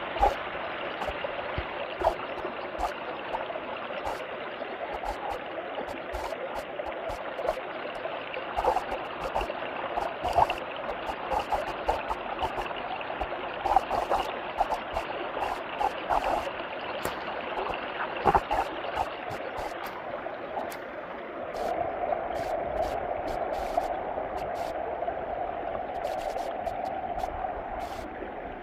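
Water flowing and gurgling in a stream, with scattered small splashes and clicks. About two-thirds of the way through it settles into a steadier rushing.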